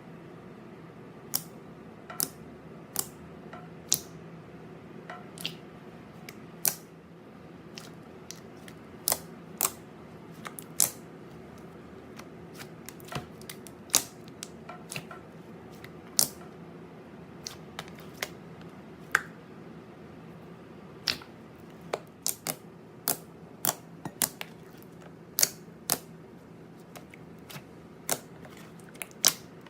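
Glossy slime being squeezed and worked by hand, giving sharp, irregular clicking pops, about one or two a second, over a faint steady hum.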